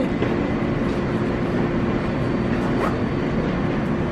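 Subway platform noise: a steady rumble with an even hum from a subway train standing at the platform.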